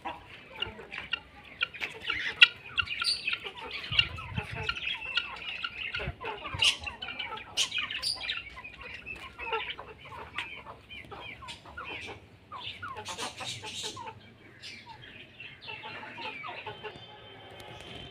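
Hens clucking, with many short calls overlapping.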